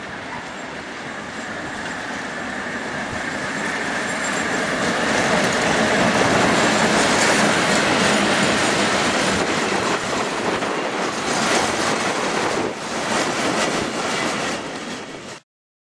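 Vintage passenger carriages of a historic train rolling past at close range, their wheels rumbling and clacking over the rail joints. The noise builds to its loudest in the middle as the coaches go by, and it cuts off abruptly near the end.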